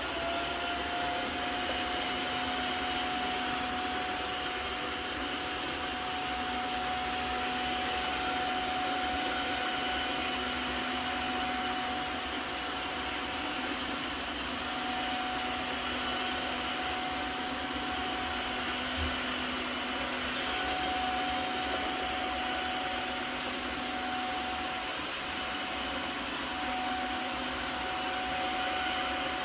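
Tineco Floor One F3 cordless wet-dry floor vacuum running at a steady speed: a constant motor whine over a rush of air.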